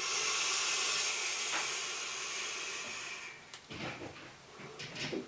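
Long draw on an e-cigarette: a steady hiss of air pulled through the atomizer for about three seconds, fading out. It is followed by a few short breathy puffs as the vapour is exhaled.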